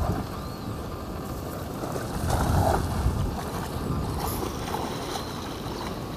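Wind rumbling on the microphone over light water splashing, as a nylon cast net is thrown and lands on shallow water and a man wades through it.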